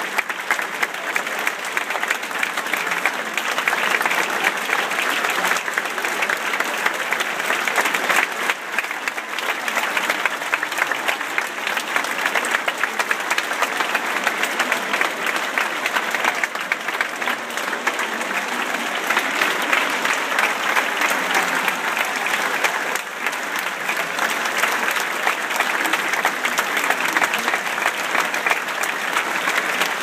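A large theatre audience applauding, with dense, steady clapping.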